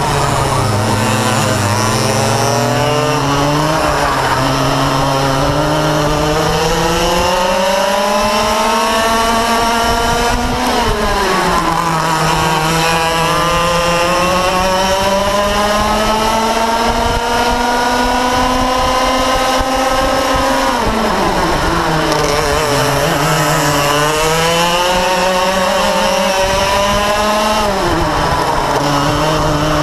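Yamaha KT100 two-stroke kart engine at race pace, heard onboard. Its pitch climbs steadily along the straights and drops sharply four times as it comes off the throttle for corners.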